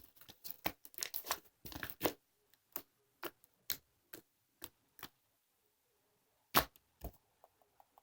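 A series of sharp clicks and taps, a quick cluster in the first two seconds, then single clicks about every half second, and two louder clicks about a second from the end.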